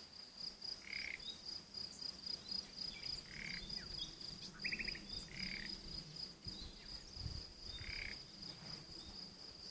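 Crickets trilling steadily, a high pulsing chirr, with a short lower call repeating about every two and a half seconds and a brief rapid chirp about five seconds in.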